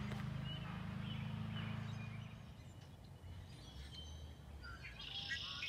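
Outdoor ambience: a low steady hum fades out over the first two seconds or so. Then come scattered faint bird calls, with a short cluster of higher calls near the end.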